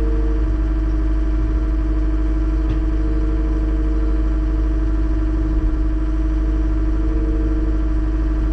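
John Deere 333G compact track loader's diesel engine running steadily under load as the machine drives down the trailer ramps, with a steady hum and a tone that comes and goes.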